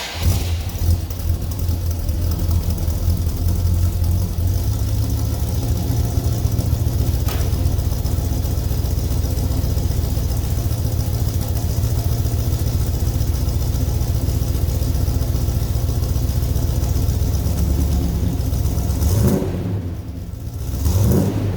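Car engine running through a worn-out Magnaflow muffler, idling with a steady deep exhaust rumble, then revved briefly twice near the end.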